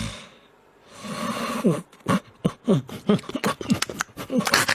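A pet animal giving a rapid run of short calls, each sliding down in pitch, with a few clicks among them, starting about a second and a half in.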